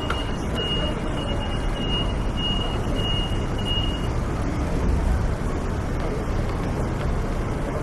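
Busy city street ambience: a steady din of traffic and passers-by. A high electronic beep repeats a little less than twice a second and stops about four seconds in.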